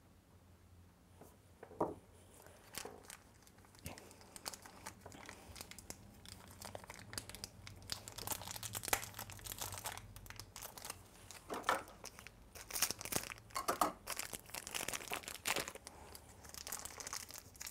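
Small plastic toy packet being crinkled and torn open by hand: sparse crackles at first, growing into dense, louder crinkling in the second half.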